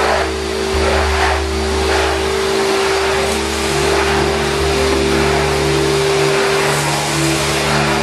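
Numatic Henry Wash wet vacuum running with a steady motor whine and rushing suction, its floor tool drawn over a wet concrete floor.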